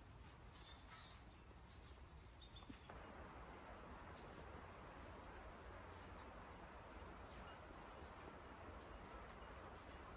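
Quiet rural outdoor ambience with birds: a short, brighter bird call about half a second in, then scattered faint high chirps from small birds. The steady background hiss grows a little louder about three seconds in.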